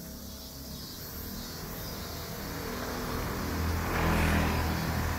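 A car on the street approaching and driving past, its engine and tyre noise growing steadily louder to a peak about four seconds in, then easing.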